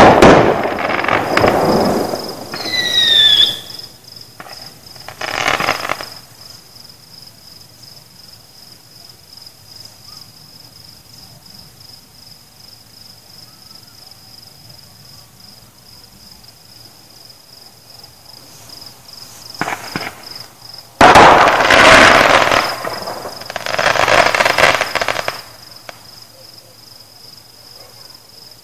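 Fireworks exploding in clusters of loud bangs and crackles: a run in the first few seconds with a brief falling whistle, another burst near 6 s, a long lull, then a heavy cluster from about 20 to 25 seconds. Crickets keep up a steady high chirping throughout.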